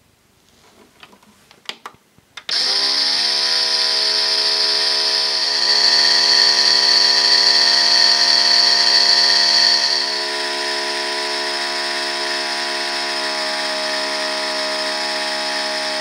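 Small electric water pump of a Theo Klein toy Miele dishwasher starting up about two and a half seconds in, after a few faint clicks, and running with a steady whine and hiss. It gets a little quieter about ten seconds in. The pump pushes only a weak trickle of water from the spray jet, which is called pretty pathetic.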